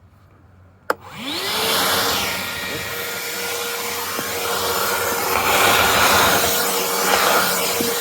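Craftsman V20 20-volt cordless 5-gallon wet/dry vac switched on with a click about a second in; its motor spins up with a rising whine, then runs steadily with a constant whine over loud rushing airflow.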